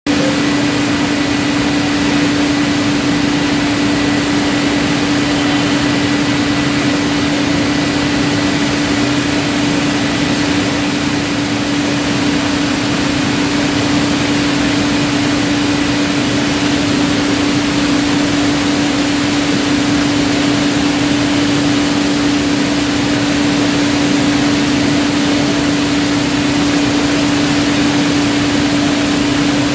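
Bottling line conveyors and machinery running: a steady, even factory din with a constant hum.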